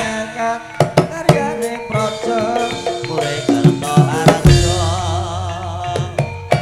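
Javanese gamelan music for tayub dancing: sharp kendang hand-drum strokes drive the rhythm under ringing metallophone notes, with a wavering melody line over them.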